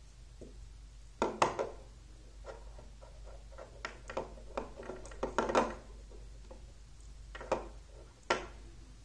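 Magnetic rods and steel balls clicking as a dome is built from them by hand: short, sharp metallic clicks as the rods snap onto the balls, with a quick cluster of clicks about halfway through.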